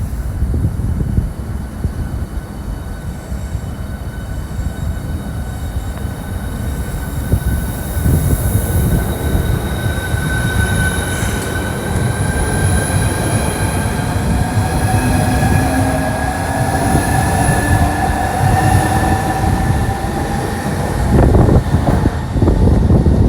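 High-speed electric train moving along the platform: a heavy rumble of wheels on rail with whining tones from the traction motors and wheels that slowly rise in pitch, getting louder near the end.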